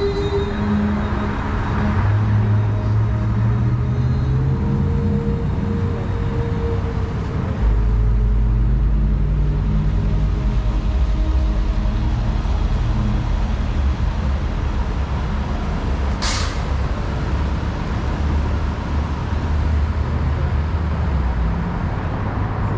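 Heavy road traffic: a large vehicle's engine running under a deep steady rumble, its pitch rising twice as it pulls away. A short, sharp hiss like an air-brake release comes about two-thirds of the way through.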